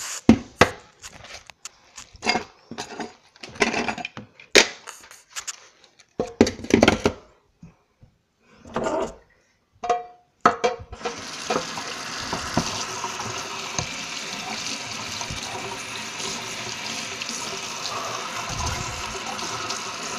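A string of knocks and thumps, then about halfway in a kitchen tap is turned on and runs steadily into a stainless steel sink.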